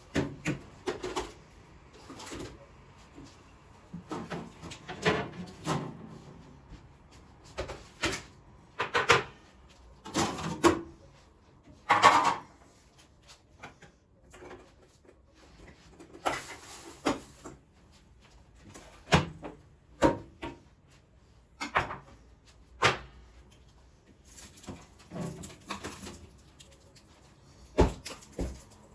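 Kitchen containers and packaging being handled while a refrigerator is organized: a string of separate knocks, clicks and rustles as items are picked up and set down. The loudest knocks come about nine, ten and twelve seconds in.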